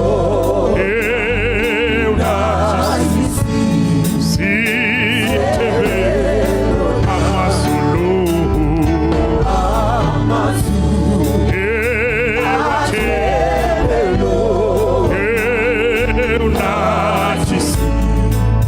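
Gospel song: singing voices with a strong vibrato over a steady bass accompaniment, at a constant loudness throughout.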